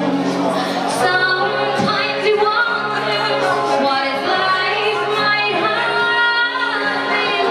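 A woman singing a slow song into a microphone, holding long notes over a steady sustained low accompaniment.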